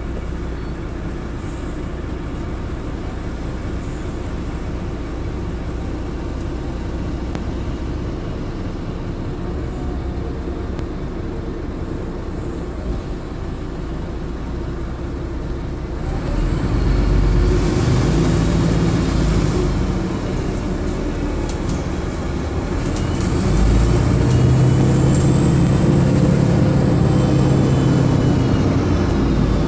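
DAF DB250 double-decker bus running along the road, heard from the upper deck as a steady engine and road rumble. It grows louder twice in the second half, with a faint whine rising and falling near the end.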